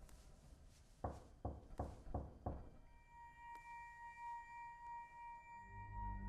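Film sound design: five dull knocks in quick succession, about a third of a second apart, then a sustained high ringing tone that slowly swells and fades. A low drone comes in near the end.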